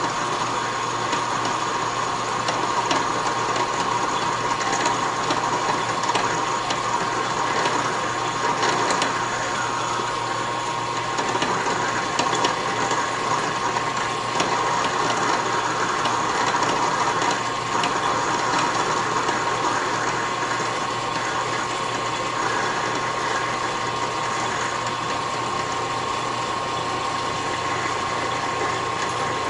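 Metal lathe running and cutting a steel workpiece, a steady machine sound with a constant high tone and irregular scraping of the cut.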